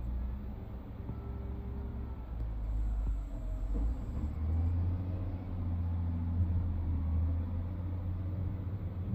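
Big excavator's diesel engine running with a steady low rumble, rising in pitch and growing louder about four and a half seconds in.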